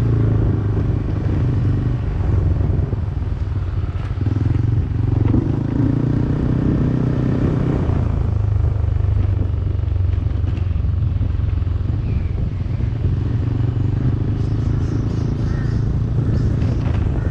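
Yamaha Aerox 155 scooter's single-cylinder engine running steadily while the bike is ridden.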